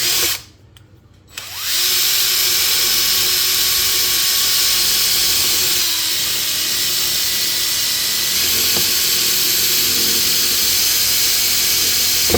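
Power drill boring through a hard tamarind wood bowl: a brief spin at the start, a short pause, then a long steady run of about eleven seconds, easing slightly in the middle as the bit works through the dense wood.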